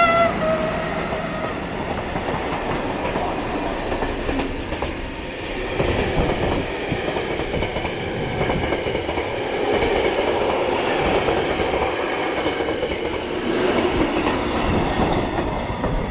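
A diesel-hauled work train of tank, hopper and box wagons rolling past close by, wheels rumbling and knocking steadily over the rails. The last note of the locomotive's horn dies away in the first second or so.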